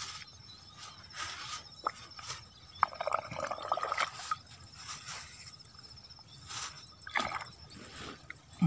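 Hands working in the shallow muddy water of a rice-field ditch, with irregular splashes and sloshes and a longer burst of wet squelching about three seconds in.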